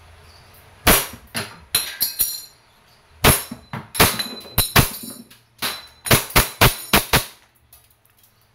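WE Hi-Capa 5.1 T-Rex gas blowback airsoft pistol firing semi-automatic on green gas: a quick string of about fifteen sharp cracks from the shots and the blowback slide, mixed with BBs striking the spinner target, some of them with a short metallic ring. The firing stops a little after seven seconds in; the shooter calls it powerful.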